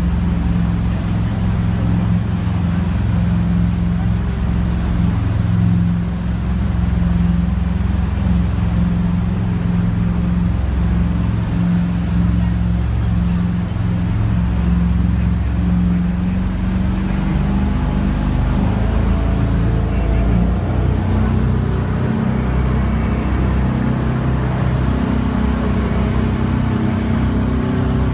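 Jet boat's engine running steadily under way. Its note shifts to a different pitch about two-thirds of the way through.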